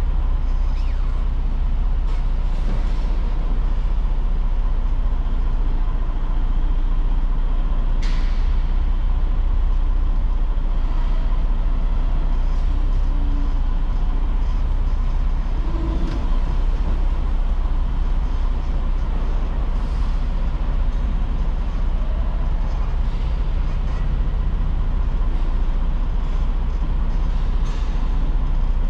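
Big truck rig running, a steady low engine rumble, with a few short hisses of air, the sharpest about eight seconds in and near the end.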